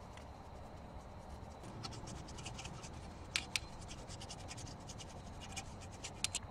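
Irregular scratching and scraping strokes worked over rusty brake parts, with a few sharper clicks about three and a half seconds in and near the end.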